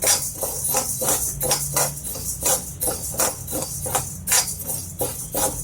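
A spatula stirring dry-roasting toor dal and whole spices in a metal pan, the dry grains and seeds scraping and rattling with each stroke, about three strokes a second.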